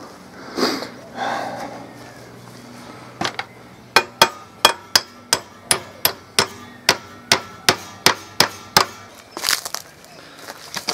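Hammer tapping a 30 mm bullet-head nail through a spearhead's socket into its wooden haft. It starts with a couple of light taps, then goes on for about five seconds of sharp, regular taps, roughly three a second, each with a faint metallic ring.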